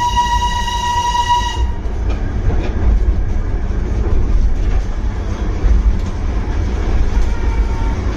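Darjeeling Himalayan Railway steam locomotive's whistle holding one steady shrill note, cutting off a little under two seconds in. The train's low running rumble and rattle continue after it.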